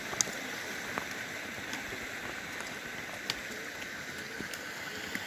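Steady rush of a mountain stream, with a few faint taps of trekking-pole tips and steps on a stony path.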